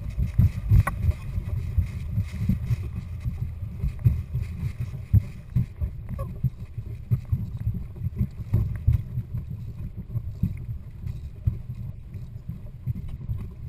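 Gusty low rumble of wind buffeting the microphone on a moving boat, over the twin outboard motors running at trolling speed and water along the hull.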